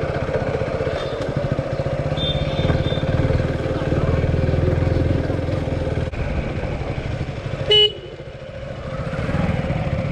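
Motorcycle engine running while riding, with a single short horn toot about three-quarters of the way through. The engine goes quieter just after the toot, then picks up again.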